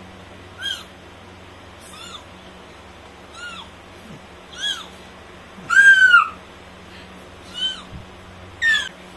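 A toddler's squeaky, unusually high voice: seven short calls, each rising then falling in pitch, the loudest and longest about six seconds in, as he names the alphabet letters one by one.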